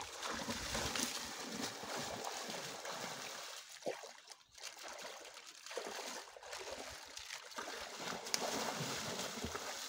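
Water splashing and churning as people wade quickly through a shallow river, briefly easing off about four seconds in.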